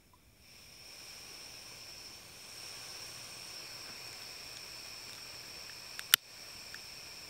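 Unlit butane gas hissing steadily from a backpacking stove burner with its canister valve opened. About six seconds in there is one sharp click from the utility lighter being fired at the burner.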